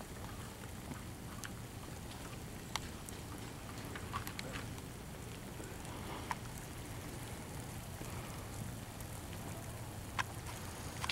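A handful of single sharp pops from airsoft guns firing, scattered a second or more apart, over a steady hiss.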